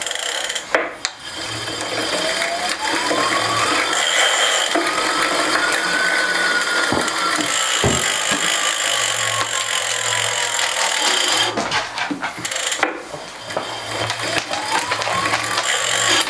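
Fast continuous ratchet clicking from a spinning mechanism, with a faint whine that rises and then slowly falls as it runs down. It stops briefly about two-thirds of the way through and starts again, the whine rising once more near the end.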